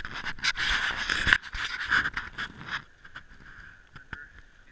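Scraping, rustling and knocking noise from a camera carried on the move, louder for the first three seconds and then dropping to a faint rustle.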